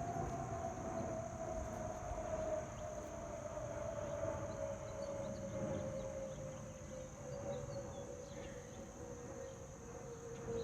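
Jet airliner passing low on its descent, a steady engine whine that slowly falls in pitch as the plane moves away, over a low rumble. Crickets chirp steadily in the background.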